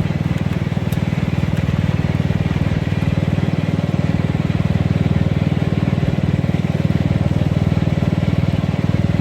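Riding lawn mower's engine running at a steady speed while the mower is driven: a constant low drone with a fast, even pulse.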